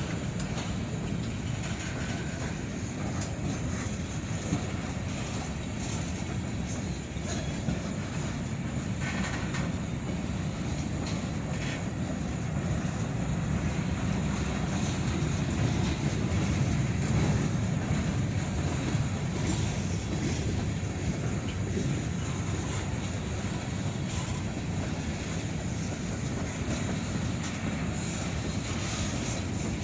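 Long Norfolk Southern freight train rolling steadily past, a continuous low rumble of car wheels on the rails with occasional faint clicks, growing a little louder midway.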